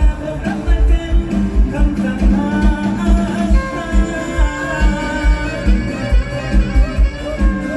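Isan molam band music in a medley, a steady bass-drum beat under long held melody notes.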